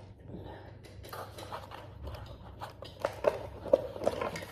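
Irregular knocks and clicks of a smart door lock's front panel and its packaging being handled, the loudest near the end.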